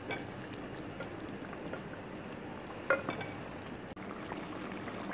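A metal spoon clinks against an aluminium cooking pot as a chicken and potato curry with yogurt is stirred, with a couple of sharp clinks, the loudest about three seconds in. Under it runs the steady hiss of the curry simmering.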